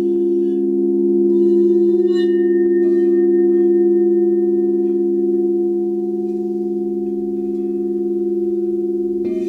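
Crystal singing bowls ringing together in several steady, overlapping tones that beat slowly against each other, with a few faint clicks of the mallet. Near the end a bowl is knocked once and a new, higher tone joins in.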